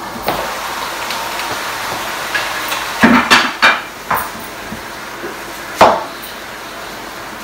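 Wooden spatula knocking and scraping against a metal cooking pan while stirring: a quick run of knocks about three seconds in and one sharp knock near six seconds, over a steady background rush.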